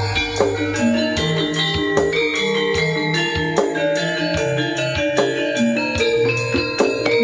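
Live Javanese jaranan music, played loud through a sound system: drum strokes keep a steady, quick beat under held, ringing melodic notes.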